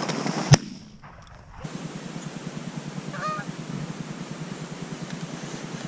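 Canada geese honking a few times, with one sharp bang about half a second in.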